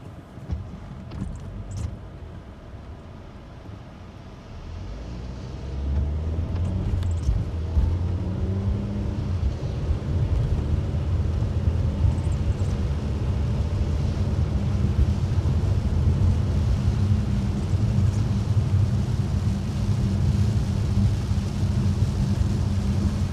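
Car interior noise: a low road and engine rumble that builds about five seconds in as the car pulls away, then holds steady while driving on a rain-soaked road.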